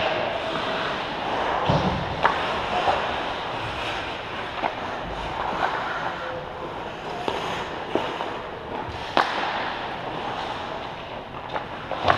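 Ice hockey play on a rink: skates scraping on the ice over a steady hiss, with sharp clacks of sticks and puck now and then.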